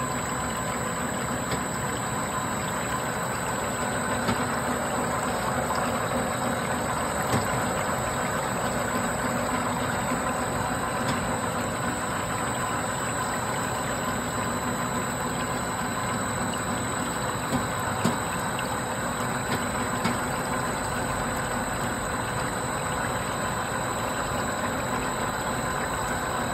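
PVC spiral suction hose extrusion and forming machine running: a steady mechanical hum with several constant high-pitched tones and a few faint clicks.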